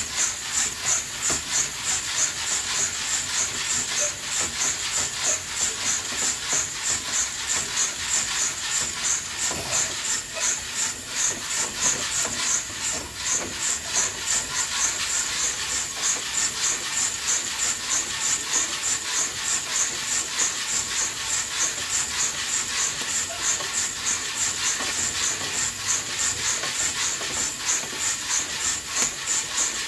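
Coffee beans roasting in an old-style roaster on a wood stove: a steady sizzling hiss with a regular swish about twice a second.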